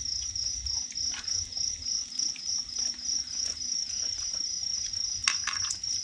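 Cricket chirping in a steady, even rhythm, a high-pitched pulse about four times a second, with a few light clicks and a sharper click near the end.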